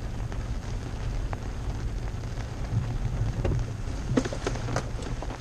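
Inside the cab of a Toyota Tacoma pickup creeping along a wet, muddy track: steady low engine and tyre rumble under rain on the truck. A cluster of sharp clicks and knocks comes about three and a half to five seconds in.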